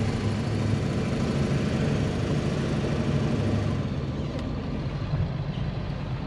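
Ford 7.3 Powerstroke V8 turbodiesel running steadily, heard from inside the truck's cab.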